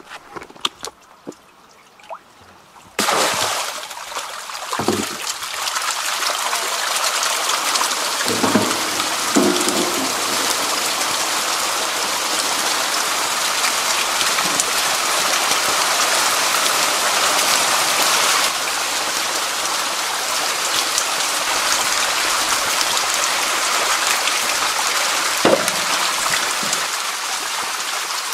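Dense, steady splashing and sloshing of water as a mass of farmed eels churns over a lump of feed paste in a feeding basket: a feeding frenzy. It starts suddenly about three seconds in, with a few dull knocks.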